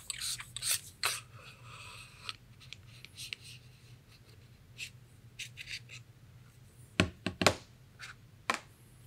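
Handling noise from an FX Wildcat MKIII air rifle as its air tube is unscrewed from the action: light rubbing and scattered clicks, then a few sharp knocks about seven seconds in as the tube is laid down on the table.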